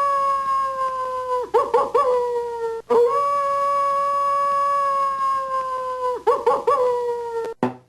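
A vintage Hanna-Barbera cartoon sound effect of a dog howling, played twice. Each time, one long held howl sinks slowly in pitch and ends in a few short, wavering yelps.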